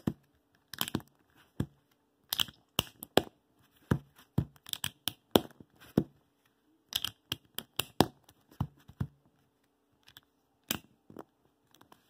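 Plastic center caps being pressed and snapped onto the centre pieces of an MF3RS3 M 3x3 speedcube: a string of sharp clicks and snaps, irregularly spaced, a few each second, thinning out near the end.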